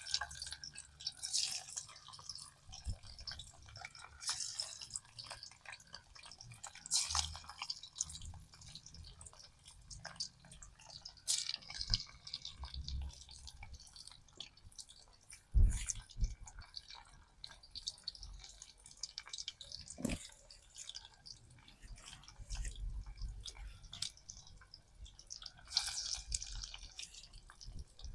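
Water splashing and dripping in irregular bursts, as when something is being washed or rinsed, with two sharp knocks about two-thirds of the way through.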